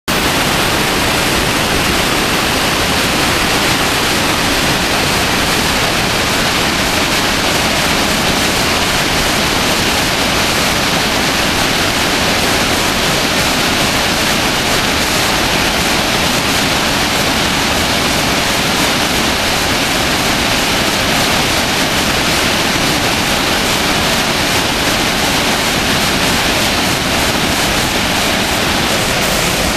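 Tall mountain waterfall and its cascade over boulders: a loud, steady rush of falling water that does not change.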